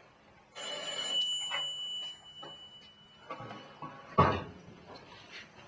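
Wooden wardrobe door being handled. About half a second in there is a scraping, rustling noise with a thin high whine that lasts over a second. About four seconds in comes one sharp, heavy knock as the door bangs shut.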